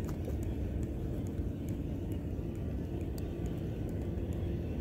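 Steady low outdoor rumble, with faint light ticks scattered through it.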